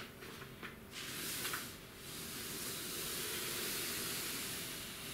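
Cardboard box sliding across a desk: a few light knocks, then a long scraping hiss that swells and fades over a few seconds.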